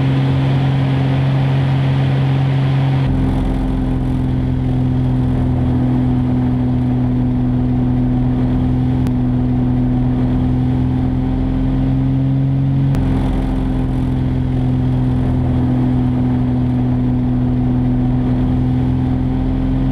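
Single-engine aerobatic propeller plane's piston engine droning steadily at high power. Its tone shifts slightly about three seconds in and again around thirteen seconds.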